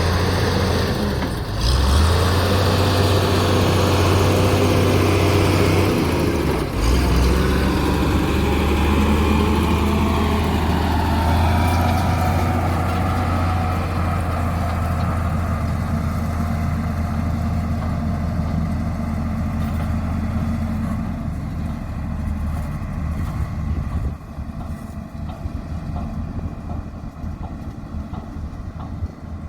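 Diesel engine of heavy road-construction machinery running steadily with a low hum. The louder machine noise fades gradually after about ten seconds and drops again about three-quarters of the way through.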